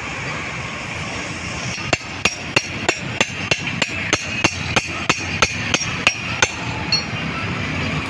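Metal tapping at the front wheel axle of a motorcycle: sharp, evenly spaced metallic clinks at about three a second, starting about two seconds in and stopping near the end, over a steady background hum.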